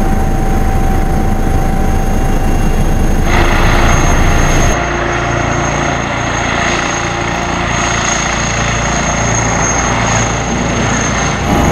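Airbus H160 twin-turbine helicopter: first its steady cabin noise in flight, a rumble with a droning tone. About five seconds in, the sound cuts to the helicopter heard from outside as it flies low past, with a steady high turbine whine over the rotor beat. Near the end it cuts back to the cabin.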